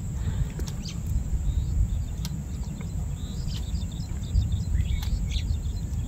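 Steady low rumbling outdoor background with a few faint bird chirps scattered through it and a handful of light ticks.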